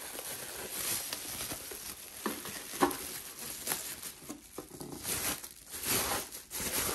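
Thin plastic bag crinkling and rustling as it is pulled off a boxed speaker unit, in irregular crackly bursts.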